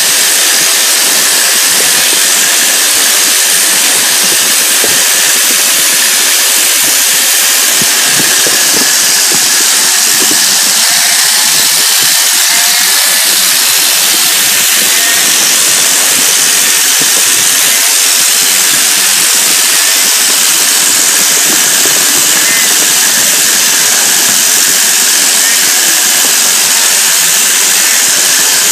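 Sheep-shearing handpiece on an overhead machine's drive shaft running steadily as it clips through a sheep's fleece, a loud, unbroken running noise.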